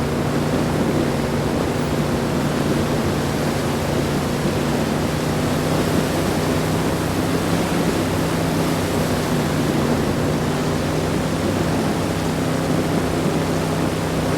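Lincoln Continental on the move, heard from inside the cabin: steady road and engine noise, an even rushing hiss over a low steady hum.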